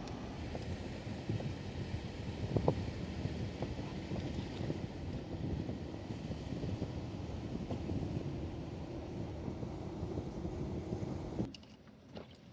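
Steady low rumble of a Sprinter cargo van heard from inside the cab, with a few faint clicks. It drops away abruptly about eleven and a half seconds in, leaving a much quieter hum.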